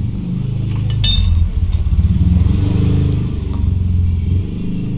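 Low motor-vehicle engine rumble with a fluttering pulse, swelling midway and then easing. A few light metal clinks of a socket wrench come about a second in.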